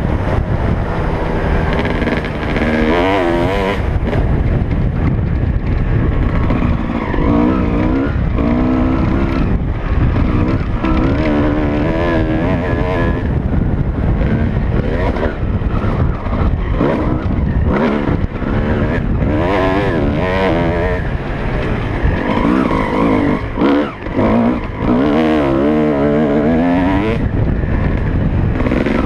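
Dirt bike engine revving hard and falling back over and over as the rider opens and closes the throttle and shifts gears around a motocross track, heard close from the rider's helmet camera. The throttle is briefly shut a couple of times near the end.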